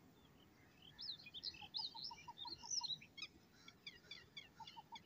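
Faint chirping and twittering of small birds: quick rising and falling chirps mixed with runs of short repeated notes.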